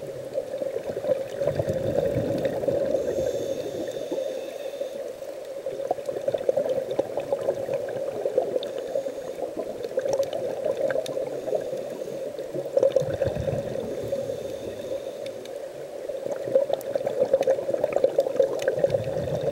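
Underwater sound of a scuba diver breathing through a regulator: exhaled bubbles gurgle and rush in bursts, three times several seconds apart, over a steady hum.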